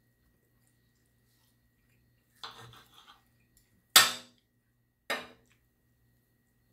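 A steak knife and fork scraping and clinking against a dinner plate while cutting a T-bone steak: a short scrape about two and a half seconds in, then a loud ringing clink at about four seconds and a lighter clink about a second later.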